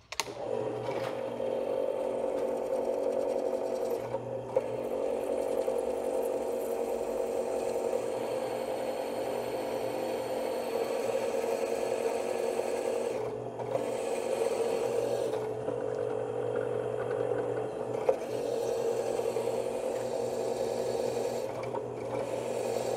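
Drill press starting up and cutting with a twist bit into a stack of clamped steel plates, running steadily with a few brief dips in level.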